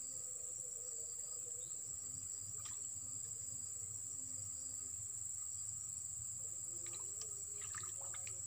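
Steady high-pitched insect chorus of crickets trilling without a break, with a few faint ticks near the end.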